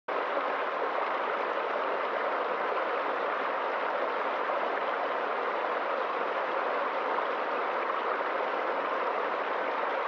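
A small stream running over a low rock cascade into a shallow pool, a steady, even splashing of water.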